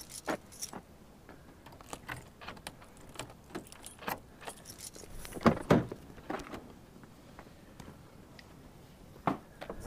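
Scattered clicks, knocks and rattles of someone rummaging about a car and opening its door, with a few louder knocks about halfway through.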